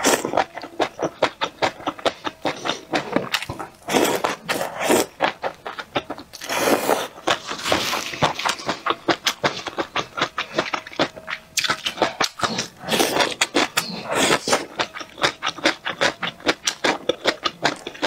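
Close-miked eating: a person slurping saucy noodles and chewing crunchy food such as duck intestines, with rapid crisp chewing clicks throughout. Several longer slurps come in between, the longest about seven seconds in.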